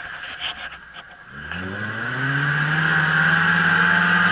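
Suzuki Samurai 4x4 engine revving up hard about a second and a half in and then held at high revs, as the tyres churn through deep mud.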